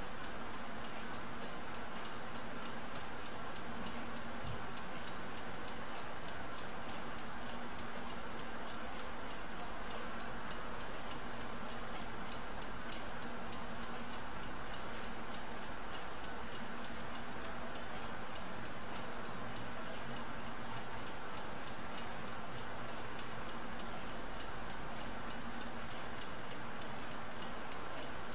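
Mechanical laboratory stopclock running, its movement ticking rapidly and evenly at about five ticks a second.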